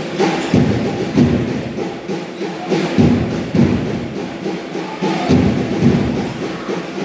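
Basketball being dribbled on a gym court: a run of dull thuds about two a second, with a break around two seconds in.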